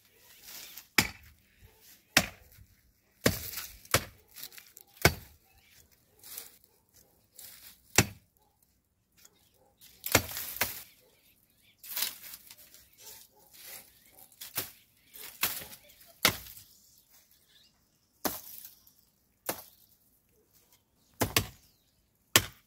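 Machete chopping into thorny bush branches: a long run of sharp, irregularly spaced strikes, roughly one every one to two seconds.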